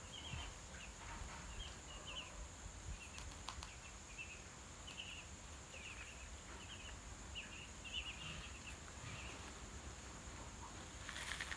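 Ducklings peeping: short, high cheeps in little clusters, repeating every half second or so, over a faint steady high-pitched hum.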